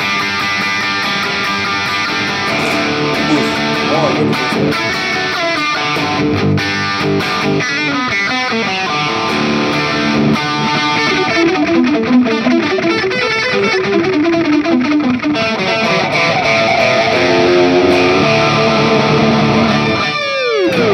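Overdriven electric guitar played through a multi-effects pedalboard preset with delay, a lead line of notes stepping up and down. Near the end the pitch glides downward.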